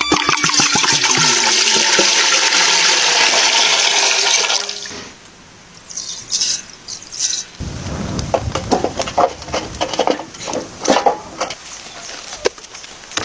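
Water pours from a metal pipe into a large metal pot: a loud, steady splashing rush that stops after about four and a half seconds. Then comes a faint patter of salt poured into the pot. Near the end, short crisp rustles and creaks of fresh cabbage heads being handled.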